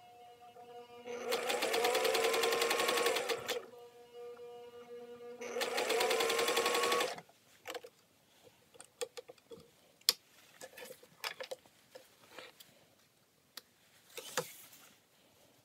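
Singer 500A sewing machine stitching in two runs, its motor whirring up to speed under a fast needle chatter, about a second in and again around five and a half seconds in. After that come scattered light clicks and a brief rustle as the work is handled.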